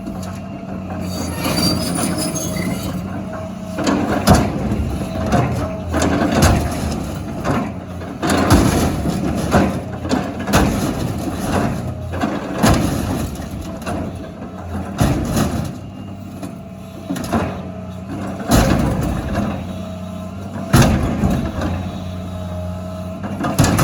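Excavator's diesel engine running steadily, with repeated irregular bangs and crunches of metal as it works over steel dumpsters.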